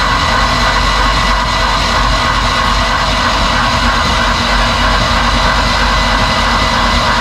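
Electric drill running steadily with a constant whine, spinning the Mercruiser 4.3's oil pump to prime the engine; oil pressure is up.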